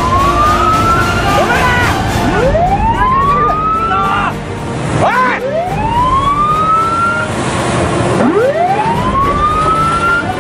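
A patrol boat's siren wailing: each sweep rises in pitch over two to three seconds and then breaks off, about three times in a row, with a quick dip-and-rise between some sweeps. A steady rush of wind and churning sea runs underneath.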